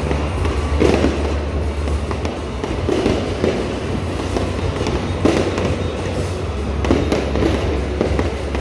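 Aerial fireworks going off: a run of sharp bangs and crackles, roughly one a second, over a steady low rumble.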